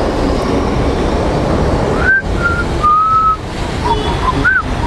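Steady wind and road rush from a motorcycle ride in the rain, with a few short whistled notes, each rising and falling, starting about two seconds in.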